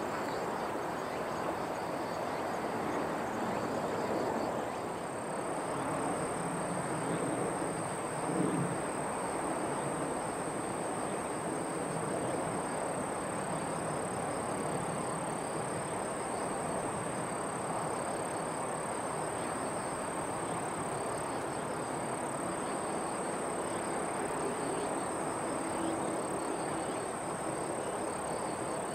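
Steady outdoor background rush with a constant thin, high-pitched whine over it.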